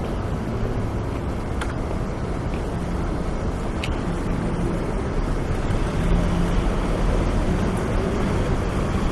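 City street ambience: a steady rumble of traffic with a low hum running under it and a few faint clicks, a little louder about six seconds in.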